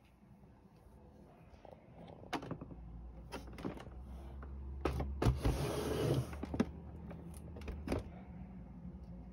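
Nespresso Vertuo Plus capsule coffee machine running: a low motor hum that builds about a second in, is strongest a little past the middle and fades near the end, with short knocks and clicks over it.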